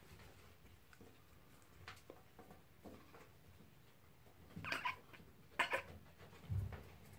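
Dwarf hamsters squeaking during a fight: two short, sharp squeals close together, about five and six seconds in. A dull low thump follows shortly after.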